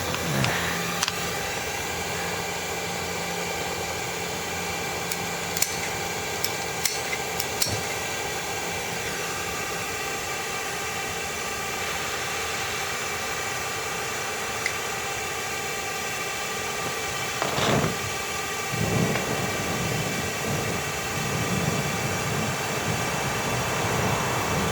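Steady rushing noise with a faint whine from a two-stroke silencer being burnt out, air blown through it as the clogged oil and carbon inside burn off. A few sharp ticks come about six to eight seconds in, and there is a brief louder rush about two-thirds of the way through.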